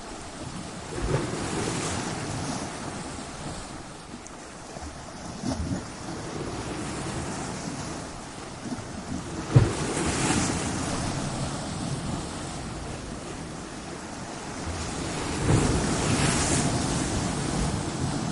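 Ocean waves breaking against coastal rocks, a steady wash of surf with four heavier surges, one every four to six seconds; the sharpest crash comes about halfway through.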